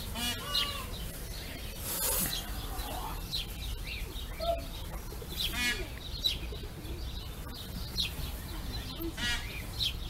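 Animal calls: repeated short high chirps and quick warbling trills, coming every few seconds.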